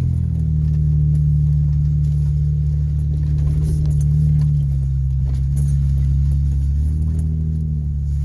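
1997 Mitsubishi Montero SR's V6 engine running at low revs while crawling, its pitch rising and falling a little as the throttle changes, with faint scattered ticks and rattles over the top.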